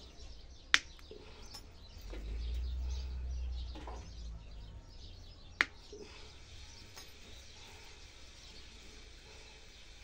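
Two sharp snips of a small hand-held bonsai cutter, about five seconds apart, with birds chirping faintly in the background. A low rumble comes and goes between the two snips.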